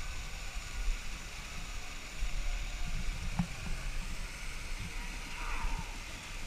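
Pool fountain jets splashing into the water, a steady hiss, with wind rumbling on the microphone.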